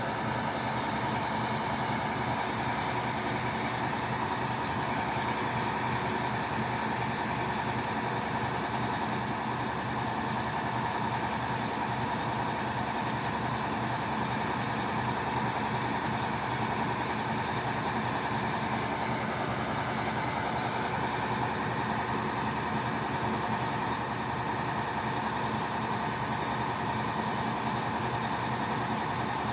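Drilling rig's engine running at a steady speed: a constant mechanical drone with a steady higher tone on top, unchanging throughout.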